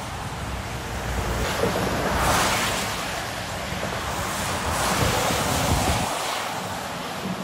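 Wind rushing over the phone microphone, mixed with the hiss of tyres on the wet motorway. The noise swells about two seconds in and again about five seconds in.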